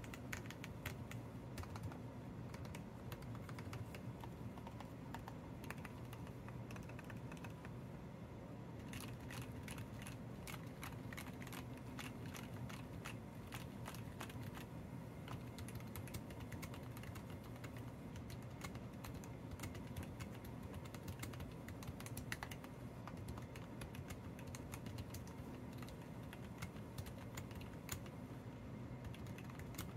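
Typing on a modded RK61 60% mechanical keyboard with lubed CIY Red Evo linear switches on 80 g springs, tape- and foam-modded: a steady stream of irregular key clicks and bottom-outs.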